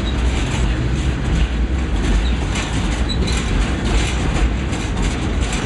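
Freight train rolling down a mountain grade, heard from on board an open flatcar: a steady, loud rumble and rattle of the cars, with irregular clatter from the wheels on the rails and a few short, faint high squeaks.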